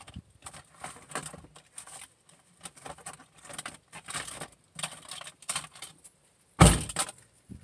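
Irregular rustling and clicking of things being handled close to the microphone, with one loud knock on or near the microphone about a second before the end.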